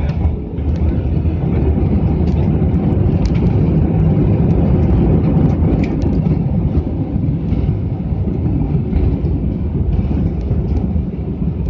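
Inside an Airbus A320's cabin during the landing rollout: a loud, steady low rumble of the engines and the wheels on the runway, with small rattling clicks from the cabin.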